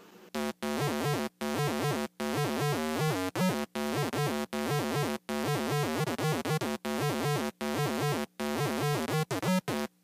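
Commodore PET playing as a monophonic synthesizer, driven from a MIDI keyboard: a buzzy electronic melody of single notes with a wavering, sweeping tone. Short breaks separate the notes, and they come quicker near the end.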